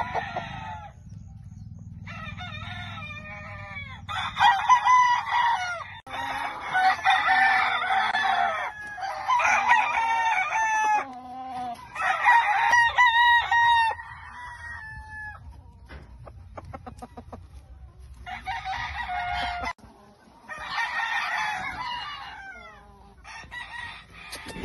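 Gamecocks crowing, one crow after another with short gaps between, along with some clucking.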